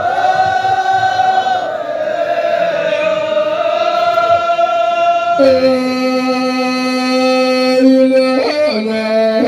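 Ahwach singing: voices chanting unaccompanied on long held notes. About halfway through the line drops from a higher, gently gliding note to a steady lower one, which dips briefly near the end.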